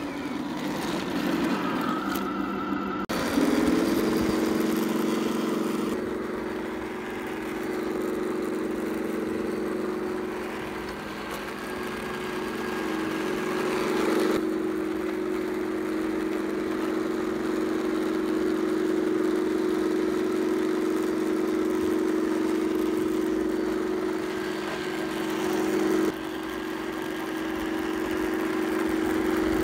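Tamiya 1/16 Leopard 2A6 RC tank running, its onboard sound unit playing a steady simulated tank engine drone. The sound changes abruptly about three seconds in and steps down briefly near the end.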